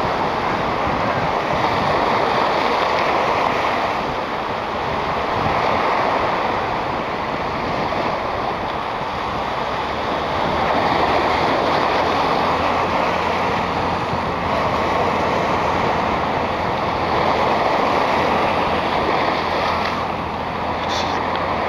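Small sea waves washing onto a sandy beach: a steady rush of surf that swells and eases every few seconds.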